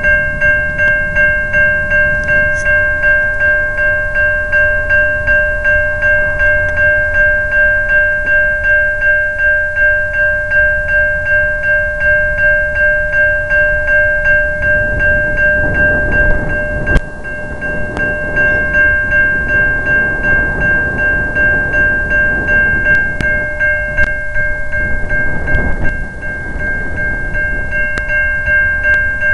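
A railroad crossing bell ringing in rapid, even strikes, over the low rumble of a freight train rolling past, with a few sharp clanks now and then.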